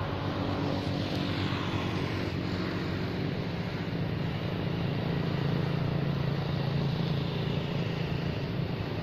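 A motor vehicle's engine running steadily with a low hum over a noisy wash, growing a little louder about halfway through.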